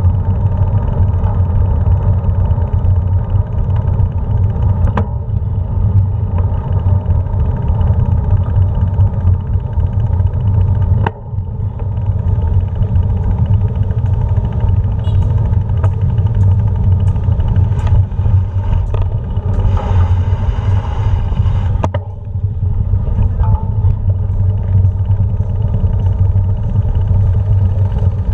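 Steady rumble of a bike rolling along paved and cobbled streets, picked up by a handlebar-mounted GoPro, with a few sharp knocks from bumps.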